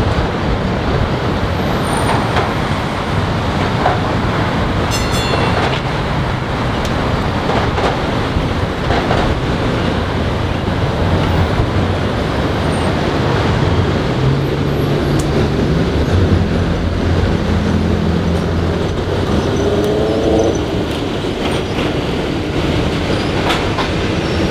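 A PCC streetcar running along the street tracks and passing close by, its steel wheels rumbling on the rails. In the second half a low motor hum climbs in pitch in steps.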